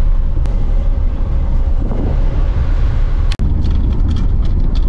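Low, steady rumble of a moving car heard from inside the cabin: road and engine noise. It drops out for an instant about three and a half seconds in, then carries on.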